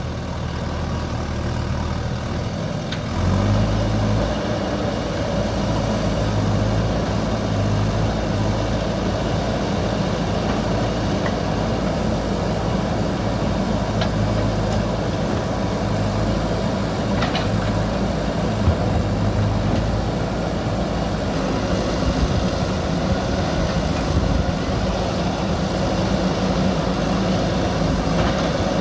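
JCB backhoe loader's diesel engine running steadily, rising in level about three seconds in as the machine takes up work, with a couple of faint short knocks.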